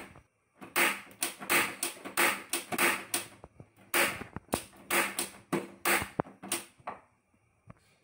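Gas stove's ignition knob worked again and again, a run of sharp clicks about three a second with a brief pause midway, stopping about seven seconds in; the burner does not light because the gas has run out.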